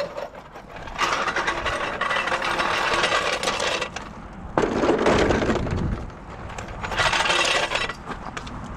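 A steel floor jack and a plastic creeper being moved about on gravel: gravel crunching with metallic clinks and rattles, in three noisy stretches with quieter gaps between.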